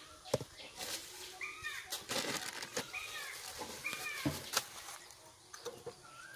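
A bird calling outdoors, a few short arched notes repeated every second or so, over sharp clicks and rustling as a plastic jar and a plastic bag are handled.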